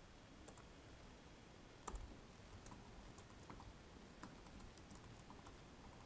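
Faint computer clicks: a mouse click or two in the first two seconds, then a run of soft keyboard typing.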